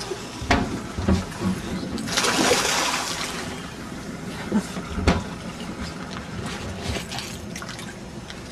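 A hooked coho salmon thrashing and splashing at the surface beside the boat, a loud rush of splashing about two seconds in. Under it the boat's outboard motor runs with a steady low hum, and a few sharp knocks sound against the boat.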